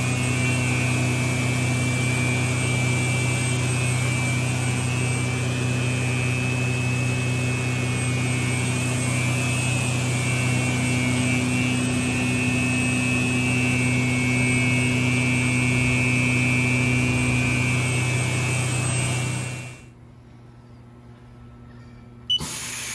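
Haas VF-3YT/50 CNC vertical mill running with coolant spraying inside its enclosure: a steady low hum with a high whine over an even hiss. It cuts out about 20 seconds in, leaving a faint hum, and a single sharp click comes near the end.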